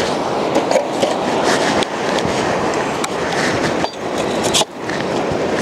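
ShoreThing electric longline winch running with a steady mechanical rattle and small clicks, winding in fishing line. The sound dips briefly about four and a half seconds in.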